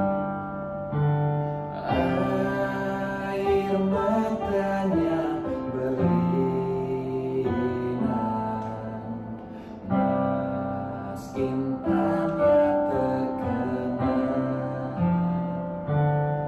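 Yamaha electronic keyboard playing slow held chords that change every second or two, with a voice singing a slow melody over them.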